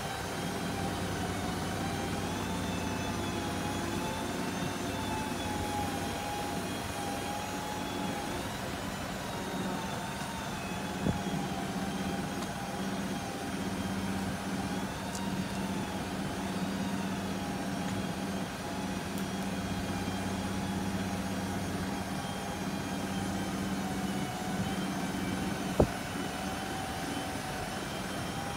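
Mitsubishi Canter's 4M50 turbo-diesel engine running steadily to power the Aichi SH09A aerial lift's hydraulics as the boom moves: a low steady hum with a whine that wavers up and down in pitch. A sharp knock about eleven seconds in and a louder one near the end.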